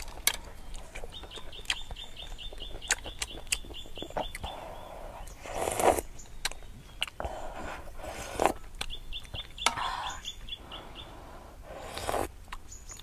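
Close-miked eating: soup slurped from a spoon three times, with lip smacks, chewing clicks and spoon taps. A bird calls twice in the background, each time a quick run of short, high, evenly repeated notes.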